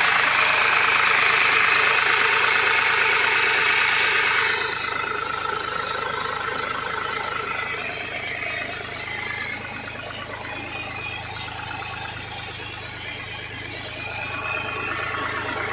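Rippa 2.5-ton mini excavator's diesel engine idling steadily. It is loud for the first four seconds or so, then noticeably quieter for the rest.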